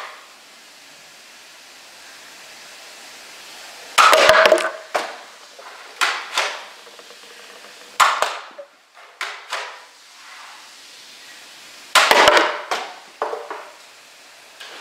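Foam darts striking empty plastic water bottles and the bottles clattering over onto a wooden tabletop, in two loud bursts about eight seconds apart, with smaller knocks and clicks between them.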